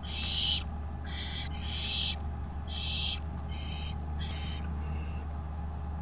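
Barn owl chicks giving their rasping, hissing begging calls (the 'snoring' food call), about seven short bursts spaced roughly half a second to a second apart, over a steady low electrical hum.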